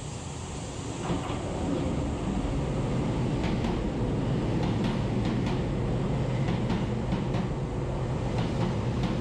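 Kobe Electric Railway commuter train running into the station alongside the platform. It grows louder about a second in, then runs steadily with a string of wheel clacks over the rail joints.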